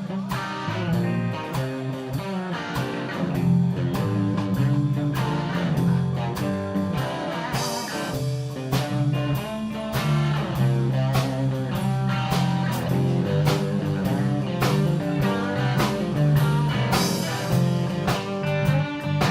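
Live blues band playing a shuffle in G minor: guitar over bass and drums, with a steady driving beat.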